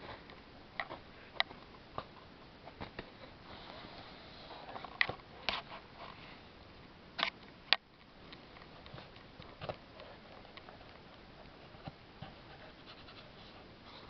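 Soft, scattered taps and scrapes of a cat shifting about in a cardboard shoebox, with a few sharper clicks around the middle.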